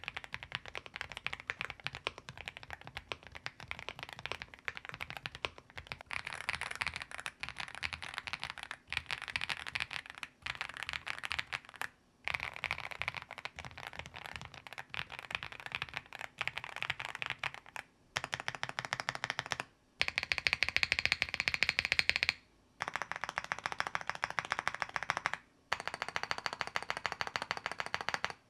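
Fast typing on AULA mechanical keyboards with linear switches: a dense, rapid run of keystroke clacks in several stretches, each ended by a short pause. The tone of the clacks changes after the pause about 18 seconds in.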